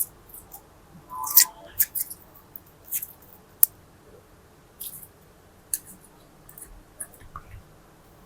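Slime being squished and mixed by hand, making irregular sticky clicks and crackling pops, with a sharp tick about three and a half seconds in.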